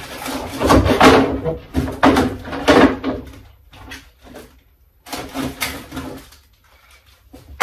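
Hands rummaging inside a large RC model airplane's fuselage, pulling out plastic-bagged parts: irregular crinkling and knocking, loudest in the first three seconds, a pause, then a shorter burst and a sharp click near the end.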